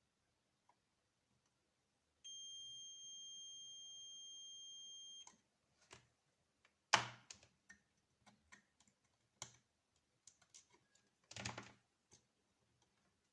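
A steady, high electronic beep lasting about three seconds, then a scattering of sharp clicks and taps, the loudest about seven seconds in and a short burst of them near the end.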